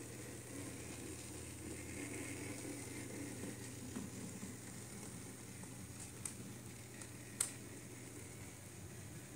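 H0e scale model steam locomotive running slowly along its track: a faint, steady hissing hum of its small motor and gearing, with two sharp clicks about six and seven seconds in.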